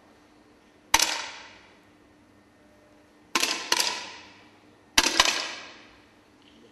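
Sharp cracks of 10 m air rifle shots, each ringing out in the hall's reverberation. There is one about a second in, then two close together, then two more close together about two-thirds of the way through. The pairs come too close together for one rifle, so more than one rifle is firing.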